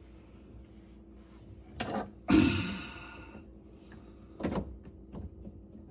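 Knocks and clanks of faucet parts being handled and fitted under a sink, the loudest about two seconds in and ringing briefly like metal, with another knock later and a few light clicks near the end.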